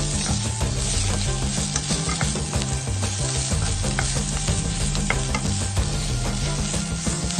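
Pork rolls and green vegetables sizzling in hot oil in a wok, stirred and turned with a wooden spatula. The sizzle is a steady hiss.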